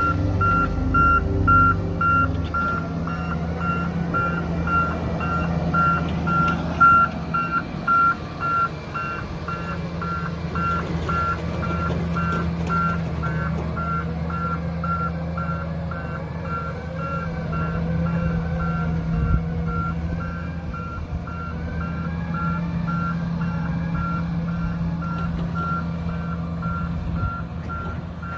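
A vehicle backup alarm beeping steadily at an even pace over the low, steady drone of diesel heavy equipment running.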